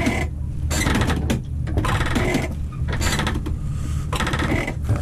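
A motor running with a steady low hum, with irregular bursts of rapid rattling clicks on top.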